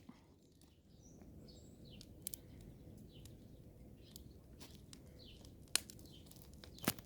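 Small twig fire of dry kindling crackling, with a few sharp cracks, the loudest two near the end, over a low steady background. Birds chirp faintly now and then.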